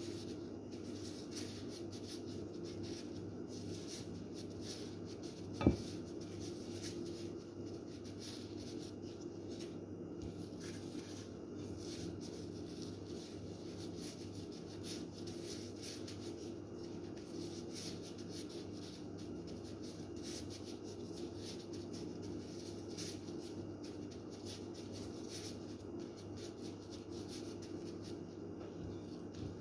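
Scratchy rustling of a plastic-gloved hand working food through breadcrumbs in a bowl, over a steady low hum, with one sharp tap about six seconds in.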